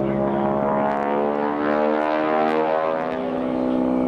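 Propeller airplane's piston engine droning steadily, its tone shifting about two seconds in.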